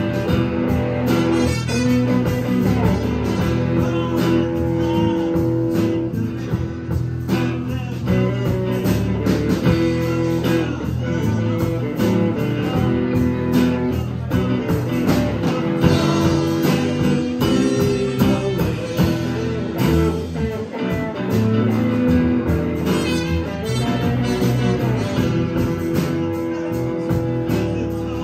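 Live band playing an instrumental passage with no singing: a trumpet plays long held notes over electric guitars, bass guitar and drums.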